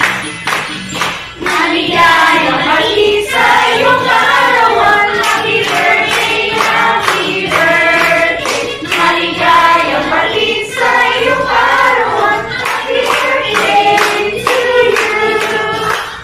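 A group of people singing together and clapping along in a steady rhythm. The singing stops near the end.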